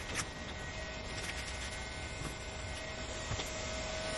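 Handheld hot-air heat gun running steadily, a fan-motor hum and hiss with a faint steady whine, with a few light taps mixed in.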